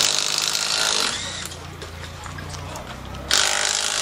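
Impact wrench on a rally car's wheel nuts during a wheel change: two loud bursts of hammering, about a second each, one at the start and one about three seconds later.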